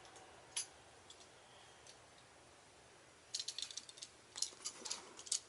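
Plastic clicks and light rattling from a plastic Transformers action figure being handled and its weapon pushed into its hand: a single click about half a second in, then a quick flurry of clicks over the last two seconds.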